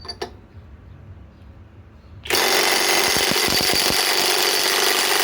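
Skil PWR CORE 20 cordless impact wrench, in reverse at its nut-busting setting, hammering steadily from a little over two seconds in as it breaks loose a large 1 7/8-inch nut.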